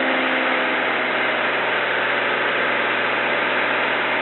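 Saab Safir light aircraft's piston engine and propeller heard from inside the cockpit, with rushing airflow: a loud, steady noise that stays even throughout.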